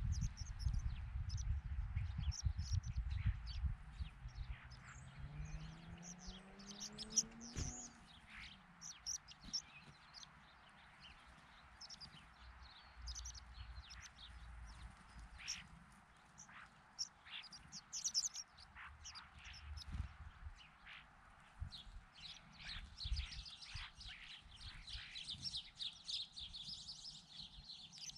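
Mixed flock of small birds giving short, high chirps throughout, thickening into a busy chatter over the last few seconds. A faint low hum rises in pitch from about four to eight seconds in.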